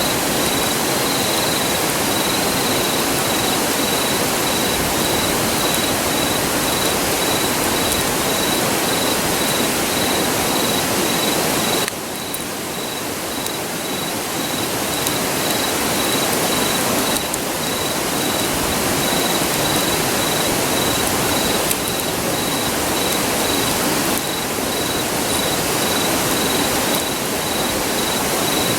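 Steady rushing of a nearby river. Over it an insect chirps in a high, evenly pulsing note, and a few faint crackles come from the wood fire. The rushing drops abruptly in level a few times, first about twelve seconds in.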